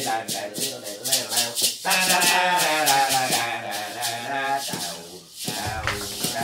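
A hand-held maraca shaken in a steady rhythm, about four shakes a second, over music with a melody.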